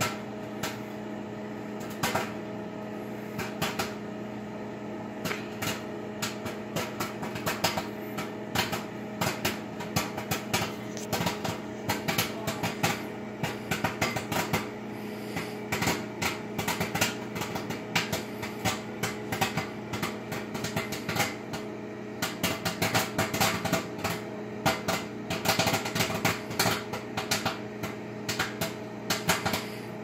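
Microwave oven running with a steady hum while popcorn kernels in a folded paper bag pop inside it. The pops start scattered, then come quicker and denser until they form a fast, continuous run of pops.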